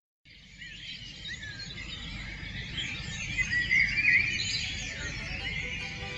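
Several small birds singing and chirping over a low, steady outdoor rumble, fading in just after the start.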